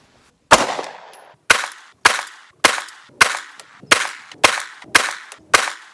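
9mm Glock pistol firing GECO full-metal-jacket rounds through its factory barrel: nine shots in a steady string. After a one-second gap following the first shot, the rest come about one every half second, each trailing off briefly.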